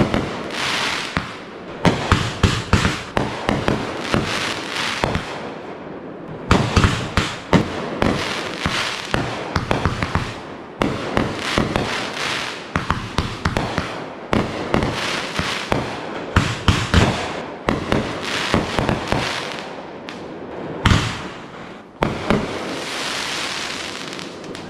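Consumer aerial fireworks going off in a near-continuous barrage: many sharp launch reports and bursts in quick succession over a crackling haze, with a short lull about six seconds in.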